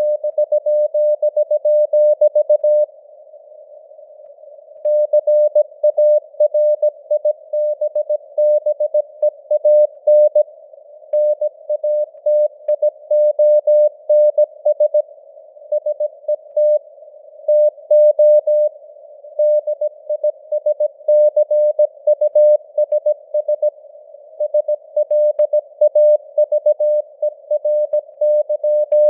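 Morse code (CW) at 17 words per minute: a single tone of about 600 Hz keyed on and off in dots and dashes, over simulated radio noise. About three seconds in, the keying pauses for roughly two seconds, leaving only the hiss.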